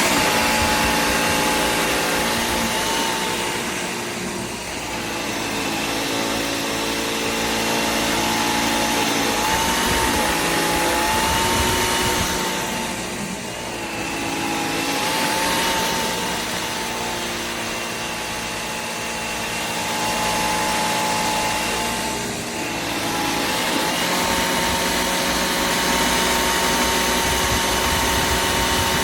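Bissell Air Ram cordless stick vacuum running with a steady high motor whine. Its loudness sags briefly about every nine seconds as it is pushed across the floor.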